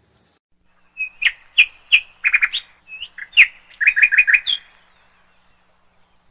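A bird singing: a string of sharp chirps starting about a second in, ending in a quick run of about five notes.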